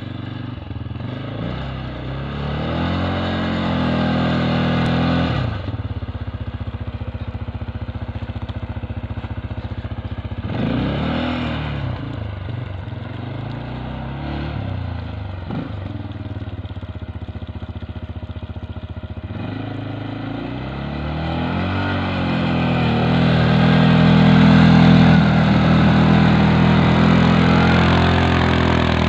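CFMoto CForce 550 ATV's single-cylinder engine revving up and down as it climbs through snow, loudest and hardest-working near the end.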